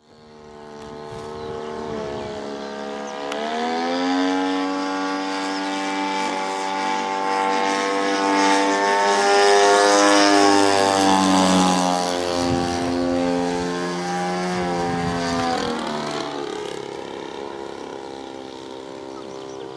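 Small two-stroke string-trimmer engine driving the propeller of a radio-controlled model airplane, a steady buzzing note whose pitch shifts up and down several times. It grows louder to a peak about halfway through, then fades.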